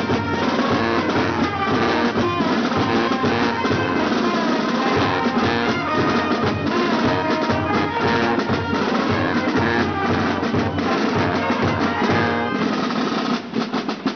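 Street brass band playing: trombones and trumpets over snare and bass drum. Near the end the brass breaks off and separate drum beats carry on.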